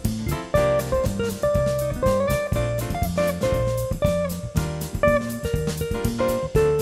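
Background music: a plucked guitar melody over a drum-kit beat with a steady rhythm.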